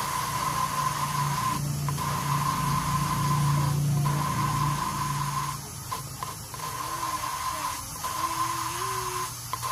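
Small high-speed electric grinder running with a steady high whine, breaking off briefly several times. It is grinding the pitted intake port of a motorcycle cylinder head.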